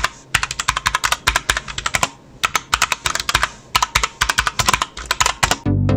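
Fast typing on an SPC Gear GK630K mechanical keyboard with Kailh Brown tactile switches: rapid key clicks in quick bursts with brief pauses. Electronic music comes in just before the end.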